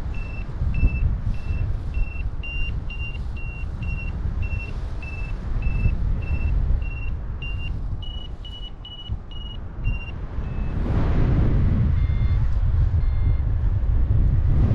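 Free-flight variometer sounding its climb tone: short high beeps about twice a second, quickening and rising in pitch about eight seconds in as the glider climbs in a thermal, then stopping about ten and a half seconds in. Under it a steady wind rumble on the microphone, which grows louder near the end.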